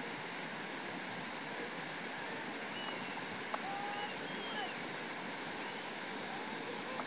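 Steady outdoor rushing hiss, like wind, with a few faint short chirps about halfway through.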